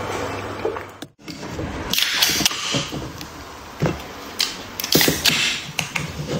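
Swallowing a drink in the first second; then two aluminium drink cans opened by their ring-pulls, each a click and a short fizzing hiss, about two and five seconds in, with light taps of the cans being handled.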